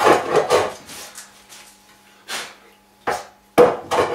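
Metal hand plane cutting along a wide wooden board in rapid back-and-forth rasping strokes. The strokes stop about a second in, two short single passes follow, and the steady planing resumes near the end.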